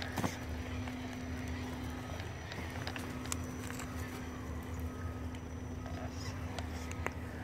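Electric RC rock crawler's motor and gearbox whining steadily as it crawls over loose stones, with scattered clicks and clatter of rocks under the tyres. The whine drops out briefly a little after two seconds in.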